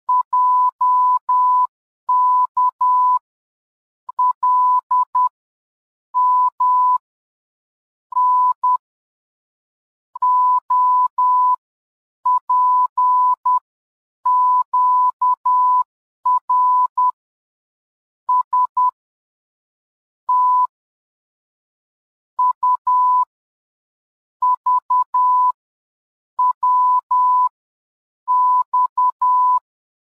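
Morse code beeps: a single steady-pitched tone keyed in short dots and longer dashes, sounding out one letter after another with a pause after each letter, about one letter every two seconds.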